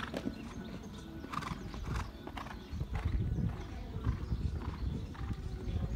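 Hoofbeats of a horse cantering on a sand arena: a run of dull, low thuds, one with each stride.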